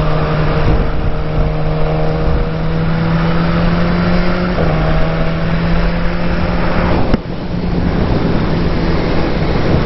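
2014 BMW S1000R's inline-four engine running at a steady note under way, with rushing wind noise. A sharp click about seven seconds in, after which the engine note falls back and the wind noise dominates.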